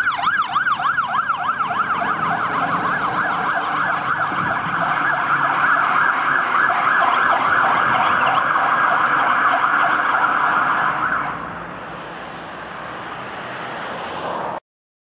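Scania fire engine's electronic siren yelping rapidly, about four sweeps a second, changing to a faster, denser warble about four seconds in. The siren stops about eleven seconds in, leaving quieter engine and road noise, and all sound cuts off just before the end.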